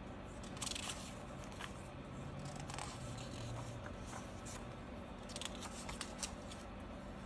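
Paper pages of a handmade journal being turned and handled by hand: soft rustles and brushes of paper with small clicks, loudest about half a second in and again around five to six seconds.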